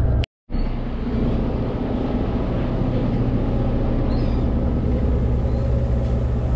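Boat engine running, a steady low drone with a deep hum, broken by a brief dropout just after the start.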